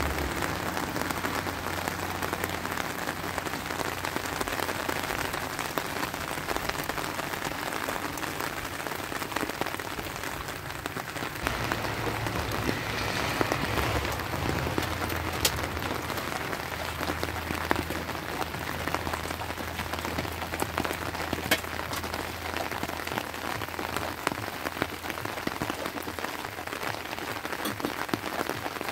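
Steady rain falling and pattering on rock and puddles, with drops dripping from a cave overhang and a few sharp ticks.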